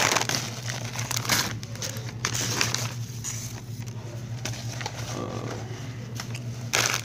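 Rustling and scratching from handling right at the phone's microphone, coming in irregular bursts over a steady low hum.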